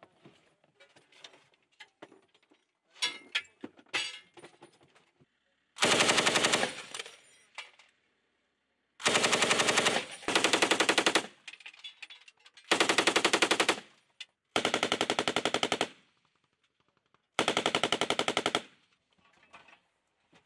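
Vehicle-mounted machine gun firing six bursts of about a second each, a few seconds apart, after several seconds of faint clicks and knocks.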